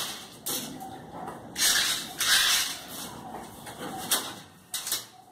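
Rustling and a few light knocks from handling a long bamboo fishing pole and a cloth. The loudest rustle comes about two seconds in.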